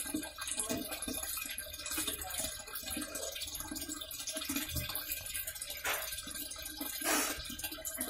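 Water pouring from the inlet of a National NA-733H top-loading washing machine and splashing into the drum onto the clothes as the tub fills.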